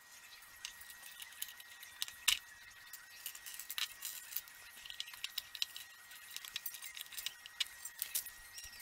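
Plastic LEGO pieces clicking and clinking as they are handled and put together: a busy, irregular run of small sharp clicks, the loudest a little over two seconds in.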